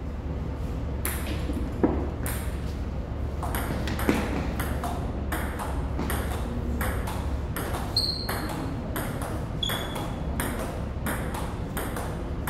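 A table tennis ball being served and rallied, the celluloid-type plastic ball clicking off rubber bats and the table about twice a second in a long, even rally. Two brief high squeaks cut in about two-thirds of the way through.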